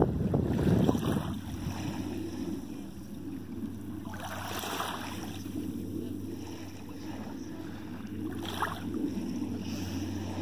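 Wind rumbling on the microphone for about the first second, then a steady low drone under gentle lapping of shallow water at the shoreline, with two short brighter washes about halfway and near the end.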